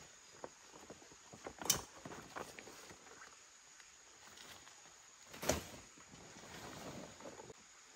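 Scattered rustles and light knocks, with two sharper knocks, one a little under two seconds in and one about five and a half seconds in.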